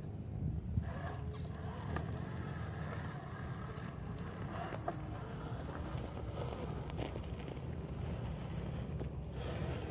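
Radio-controlled scale crawler with a Jeep Wrangler Rubicon body crawling slowly over dirt: its motor and gears whine faintly and unevenly, with scattered clicks of tyres on soil and stones. A steady low rumble of wind sits on the microphone.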